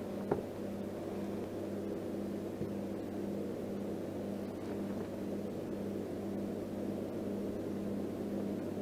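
Steady low motor hum, even and unchanging, with a single sharp click about a third of a second in.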